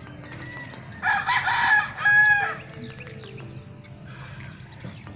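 A rooster crowing once, about a second in: a pitched call in two parts, the second ending on a held note, lasting about a second and a half. A steady low hum runs underneath.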